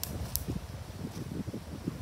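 Wind buffeting the microphone with rustling close by, and a couple of sharp clicks near the start.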